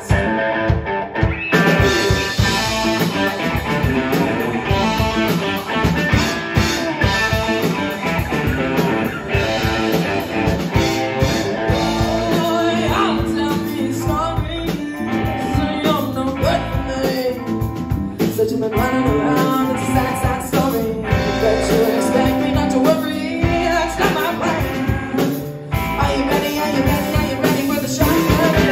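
Live rock band playing an original song: electric guitars over a drum kit, with a woman singing. A guitar is heard alone at first, and the full band comes in about a second and a half in.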